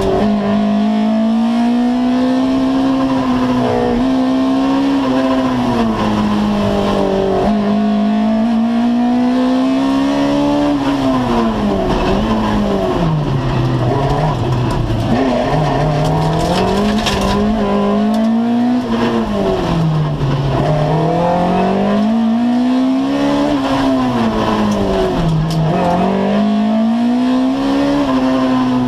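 Two-wheel-drive rally car's engine at racing pace, heard inside the stripped, roll-caged cockpit. The revs climb in long pulls early on, then swing widely down and up again and again.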